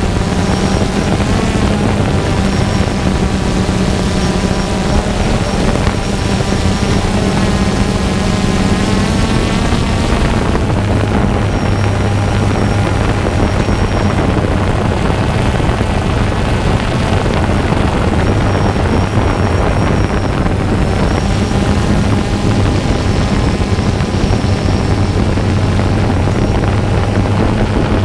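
Multirotor drone's propellers and motors running steadily, picked up by the camera on the drone itself, with a high whine coming and going. The hum shifts in pitch about ten seconds in.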